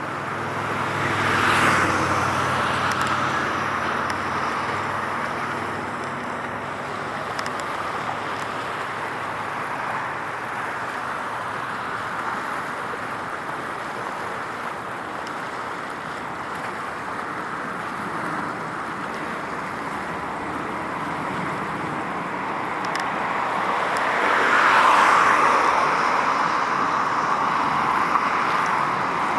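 Road traffic: a steady hum of vehicles, with one car passing loudly just after the start and another about 25 seconds in.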